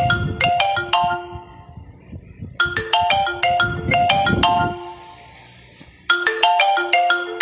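Marimba-style phone ringtone ringing: a quick run of bright mallet notes, repeated about every three and a half seconds with short pauses between.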